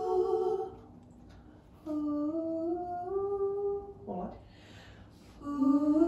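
A small vocal group humming a cappella in harmony: several voices hold chords together and move stepwise between them, in short phrases with brief pauses.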